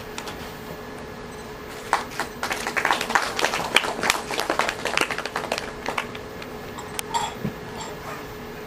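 Applause: a small group's hand-clapping starts about two seconds in and dies away after about four seconds. A single sharp click follows near the end, over a faint steady hum.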